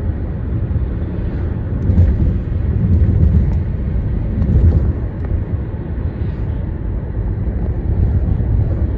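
Low, steady rumble of a bridge with vehicles crossing it. It swells louder between about two and five seconds in, with a few faint high clicks.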